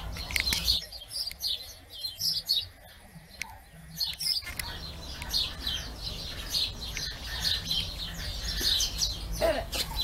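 Lovebirds chirping in a busy stream of short, high chirps.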